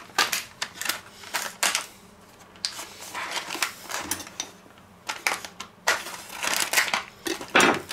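Plastic bacon packaging crinkling and crackling in a run of irregular clicks as the pack is handled and its film is slit open with a kitchen knife.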